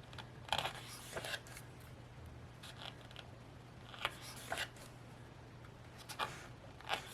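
Pages of a photo book being turned by hand: a series of short, crisp paper swishes and rustles, roughly one every second, over a faint steady hum.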